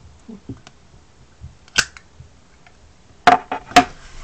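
Sharp metallic clicks from a Zippo lighter being handled: a few light ones, then two loud snaps about half a second apart near the end.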